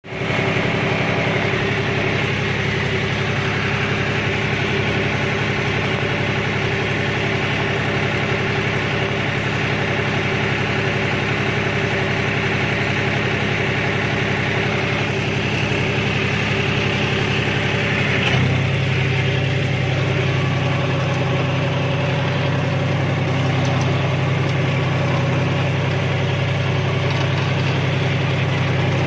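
John Deere tractor's diesel engine running steadily, heard from the driver's seat. Its note changes abruptly about two-thirds of the way through, and by the end the tractor is pulling a disc plough through the soil.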